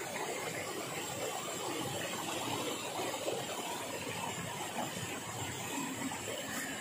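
Steady rush of flowing river water, with a faint high steady whine above it.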